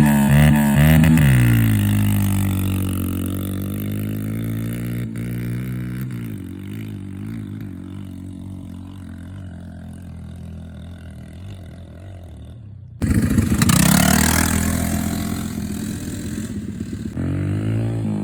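Dirt bike engine running. Its note falls and fades for most of the first twelve seconds, then cuts off abruptly to a louder engine revving up and down.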